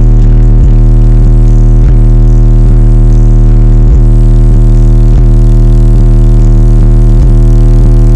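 Wall of Hutchinson Audio subwoofers in a welded all-steel enclosure playing a bass demo at pressures above 165 dB, heard from inside the vehicle. A very loud, deep, steady bass note overloads the recording into a distorted buzz, with a few brief dips.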